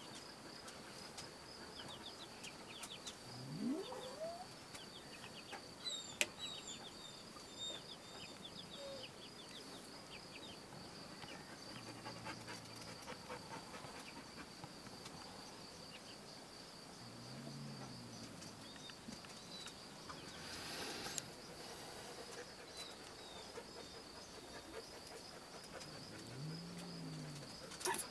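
Quiet scene with a few soft, low animal calls: one rising call about four seconds in and two short arching ones later. A faint steady high tone runs underneath, with scattered faint chirps and ticks.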